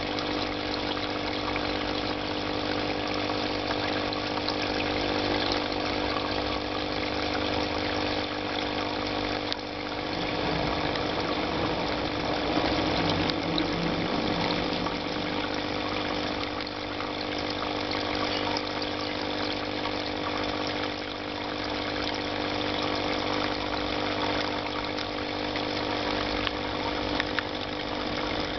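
Steady mechanical hum of aquarium pump equipment running, with several fixed tones over a watery hiss.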